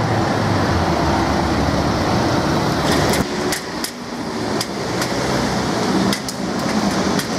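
Heritage tram and street traffic: a steady low motor hum and rumble. About three seconds in this changes abruptly to a lighter street noise with several sharp metallic clicks and knocks while a car passes.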